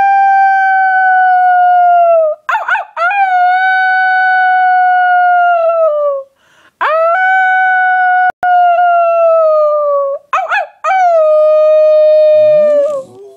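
A string of long, drawn-out howls, each held steady for two to four seconds and falling off at the end, with brief gaps between them. A lower, rising note comes in near the end.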